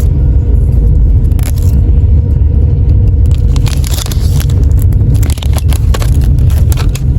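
Train in motion: a loud, steady low rumble with scattered clicks and rattles over it.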